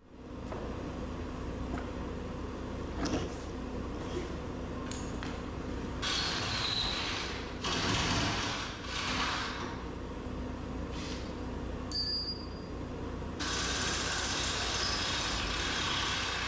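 Bobcat 435 compact excavator's diesel engine running steadily, with several stretches of hissing noise over the engine hum.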